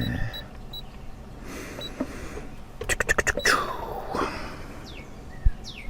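Birds chirping, with short high notes and a few calls that glide downward. About three seconds in comes a quick run of clicks, and near the end a single low thump.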